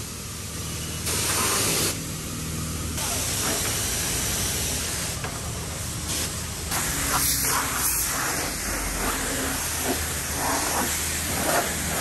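Water spraying in a hissing stream that grows louder and softer every second or two.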